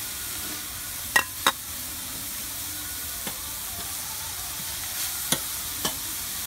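Chopped onions sizzling steadily in hot oil in a large iron pan as they are stirred with a metal spatula. The spatula clinks sharply against the pan a few times: twice about a second in and twice near the end.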